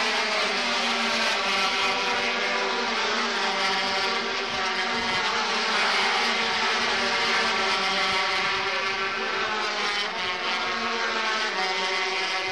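A field of 125cc two-stroke single-cylinder Grand Prix racing motorcycles running at race speed, many engine notes overlapping in a steady, high-pitched din.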